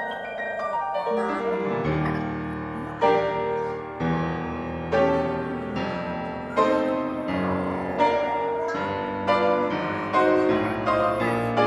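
Solo piano music, with chords struck about once a second.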